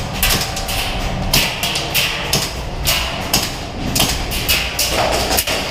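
Airsoft guns firing quick single shots: a string of sharp cracks, several a second and unevenly spaced, over a low rumble.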